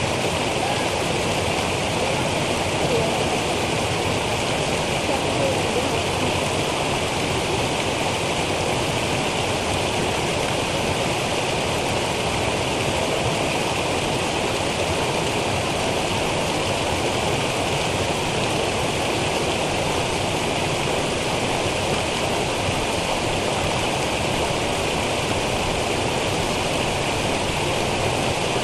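Small woodland brook cascading over rocky steps: a steady rush and splash of falling water.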